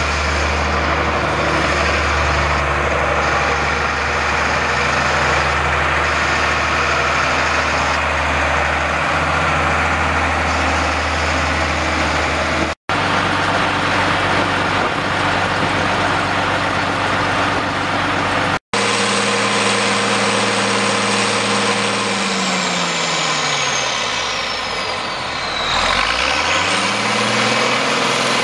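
International 3588 tractor's 7.6 L six-cylinder turbo diesel running steadily, with two brief gaps in the sound. Near the end the engine speed falls and then climbs back up.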